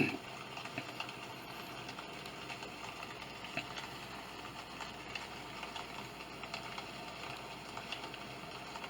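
Steady, even noise from a Sound Oasis ambient sound machine, with a sharp click at the start and faint scattered ticks.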